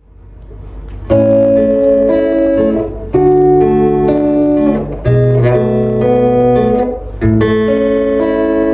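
Instrumental introduction to a choir song: sustained chords struck about every two seconds, starting about a second in, with no voices yet.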